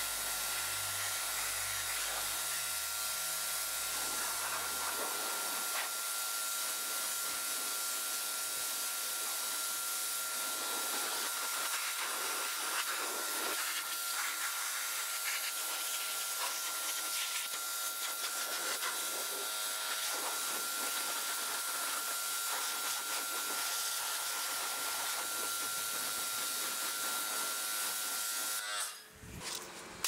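Pressure washer spraying water onto a truck's soapy tyre and chrome wheel: a steady hiss with a steady high whine under it. It stops abruptly near the end.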